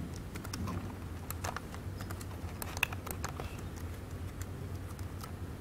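Irregular light clicks and taps of a computer keyboard and mouse being worked, over a steady low hum.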